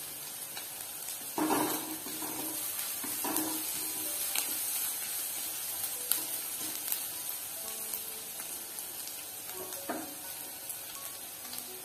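Sliced onions and a dried red chilli sizzling in oil in a nonstick kadai as they brown, with a steady hiss and a few sharp clicks from a flat spatula scraping against the pan as they are stirred.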